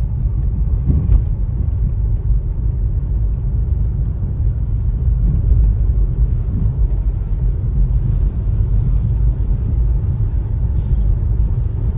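Steady low rumble of a car driving over a rough, stony road.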